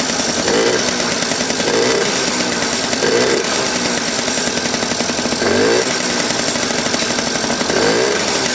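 Yamaha Champ 50cc scooter's small two-stroke single-cylinder engine running, with short surges every second or two. The owner thinks there is too much oil in the fuel mix.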